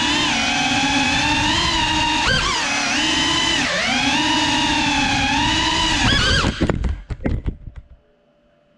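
FPV quadcopter's brushless motors and propellers whining, the pitch rising and falling with the throttle. About seven seconds in the sound breaks into a choppy stutter of strikes, and it cuts out just after eight seconds as the quad crashes and the motors stop.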